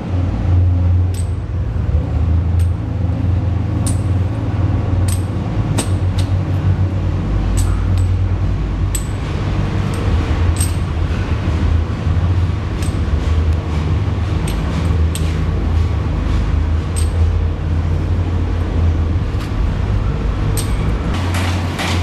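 Heavy underground mining machinery running with a steady low drone, with scattered sharp metallic clinks and knocks throughout, more of them near the end.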